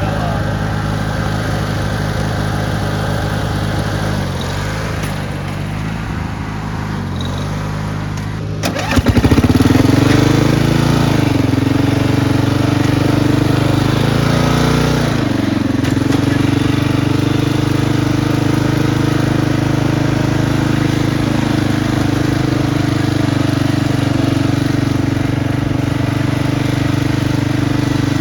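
Riding lawn mower engine running steadily. About nine seconds in it turns abruptly louder and higher, dips in pitch twice as if briefly loaded, then holds a steady, higher note.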